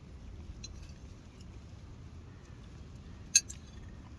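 Light clinks of cooking utensils against cookware, with one sharp, loud clink a little over three seconds in and a few fainter ticks, over a steady low rumble.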